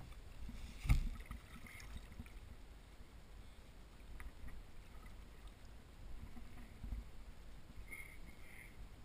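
Water lapping and splashing against a kayak hull as a smoothhound is slipped back into the sea, with one sharp knock on the kayak about a second in and small splashes from the fish a few seconds later.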